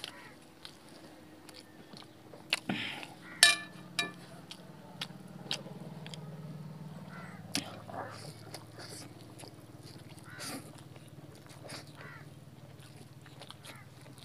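Close-up eating sounds of people chewing Maggi noodles and paratha by hand, with scattered mouth clicks and smacks. About three and a half seconds in, a short, loud, harsh call cuts through. A low steady hum runs underneath from about four seconds on.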